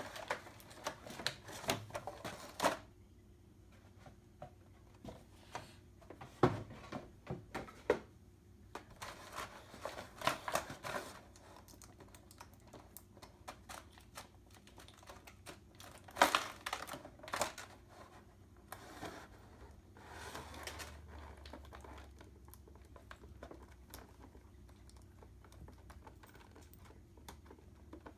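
Packaging being handled during a toy unboxing: a cardboard box and a clear plastic blister tray clicking, tapping and rustling in scattered bursts with quiet gaps, with sharper knocks about six and sixteen seconds in.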